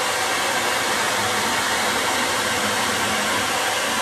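Handheld hair dryer running steadily, blowing on a freshly bathed dog's wet coat.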